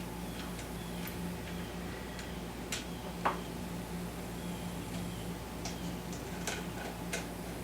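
Scattered light metallic clicks and taps of hand tools connecting the ATV's battery terminals, over a steady low hum.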